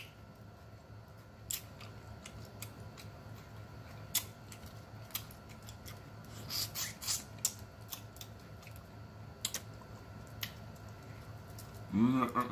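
Boiled crawfish being cracked and peeled by hand: scattered small clicks and crackles of shell, with a short run of sucking and smacking about six to seven seconds in as a crawfish is put to the mouth.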